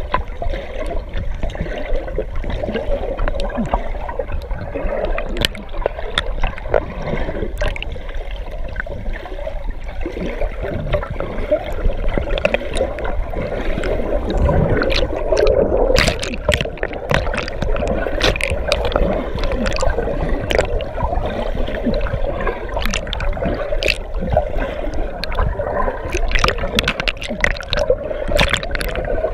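Muddy water gurgling and sloshing, muffled as heard through a submerged GoPro's waterproof housing, with frequent knocks and clicks.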